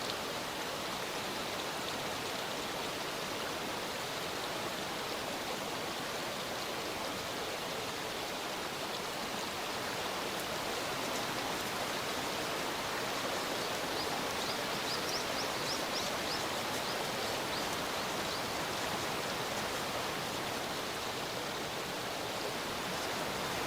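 Steady sizzling hiss from food cooking over a campfire, with a short run of faint crackles about two-thirds of the way through.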